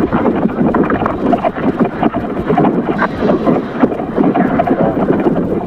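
Wind buffeting the microphone: a loud, uneven rumbling noise.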